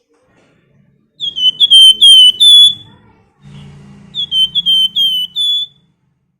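Flamboyan songbird singing its whistled 'nyiul' song: two runs of about five short, clear, falling whistles, the first starting about a second in and the second about four seconds in.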